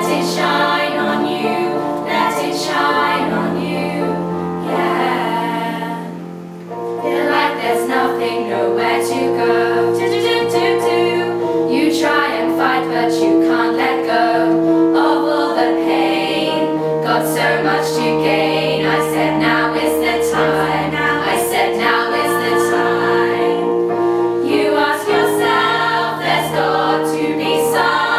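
Choral music: many voices singing over long held notes. It drops away briefly about six seconds in, then swells back.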